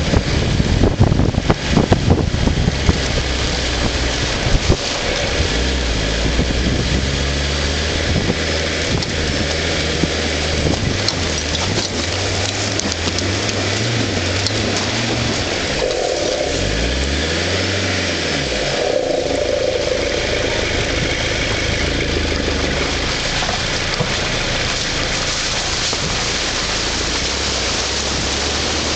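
Vauxhall Frontera 4x4 driving along a rutted mud track: the engine runs under load over a steady hiss of wind and tyres, with wind buffeting the microphone in the first few seconds. About halfway through, the engine revs up and drops back down.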